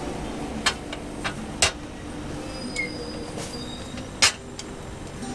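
Sharp metallic clacks from hinged cast-iron bungeoppang molds being handled, three of them, the loudest about four seconds in, over a steady low rumble.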